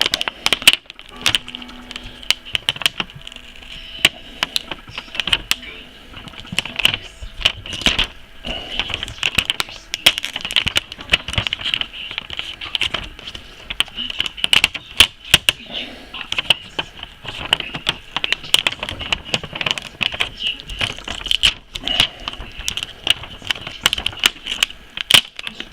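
Adhesive tape being slowly peeled off the back of a laptop LCD panel by gloved hands, giving a long run of irregular sharp crackles and clicks.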